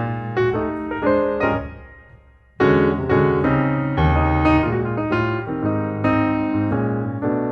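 Piano music: chords and melody notes struck and left to ring, fading into a short lull about two seconds in before the playing starts again.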